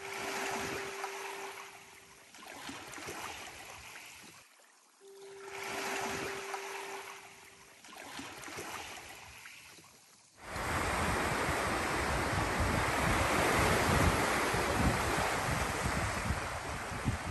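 Small waves lapping and washing over shoreline rocks in soft swells that come and go. About ten seconds in it changes suddenly to a louder, steady wash of surf breaking on a cobble beach, with wind on the microphone.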